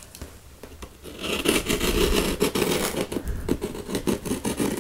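Scissors cutting along the taped seam of a cardboard mailing box: a fast run of rasping strokes starting about a second in, after quieter handling of the box.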